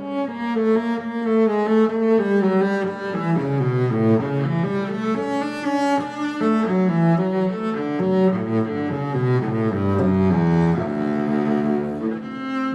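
Background music led by low bowed strings, a melody moving step by step over sustained bass notes.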